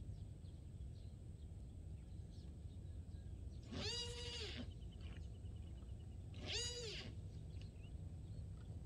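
Two drawn-out animal calls, each rising then falling in pitch, about two and a half seconds apart, over a steady low background rumble.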